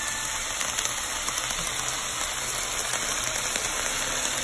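Liver, onions, chiles and tomato sizzling steadily in a frying pan: an even hiss with faint small crackles.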